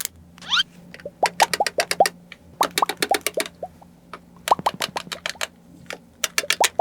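Clusters of quick sharp clicks, many followed by a short pitched 'plop' that drops quickly in pitch, with a rising whistle-like sweep about half a second in.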